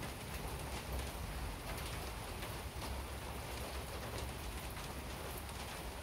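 Steady rain falling on wet concrete paving, with scattered small drop ticks and a low rumble underneath.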